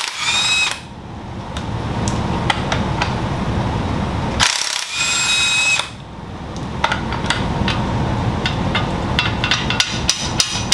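Cordless impact wrench hammering bolts on an engine block in rattling spells. Twice it gives a brief high whine, then pauses. Near the end come a few sharp knocks.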